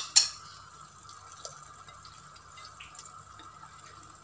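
Two sharp clicks right at the start, then soft wet ticks as cooked mussel meat is pushed by hand from a bowl into a hot clay tajine of chermoula sauce, over a faint steady hum.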